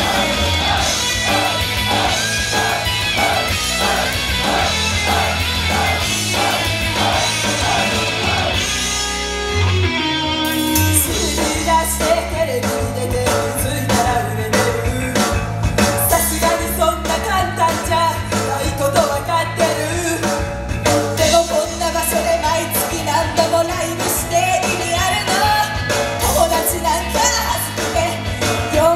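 Idol group singing a rock-style pop song live, heard through the club's sound system with guitar-driven backing. There is a short break about ten seconds in before the next section starts.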